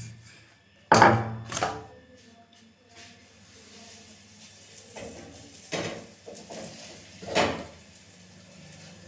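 Wooden rolling pin and round wooden rolling board knocking on a stone kitchen counter as the paratha dough is finished and the pin is set down: a few separate knocks, the loudest about a second in, with more knocks and clatters later.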